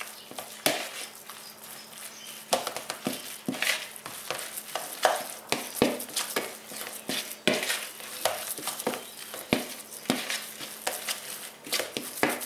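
Minced boiled-meat filling being kneaded and mixed by hand in a plastic bowl: irregular squishing and crumbling with soft knocks of the hand against the bowl.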